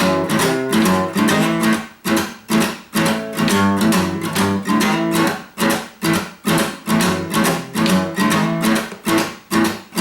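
Acoustic guitar played in a steady, strummed blues rhythm, about two to three strokes a second, with no singing.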